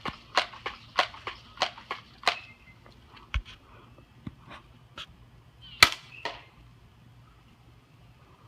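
Quick footsteps crunching over the ground, about three a second, for the first two seconds, then scattered rustles and clicks with one sharp crack about six seconds in.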